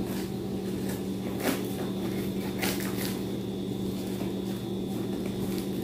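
Scissors snipping and working through packing tape on a cardboard parcel, with two or three short sharp clicks and the rustle of handled cardboard, over a steady low hum.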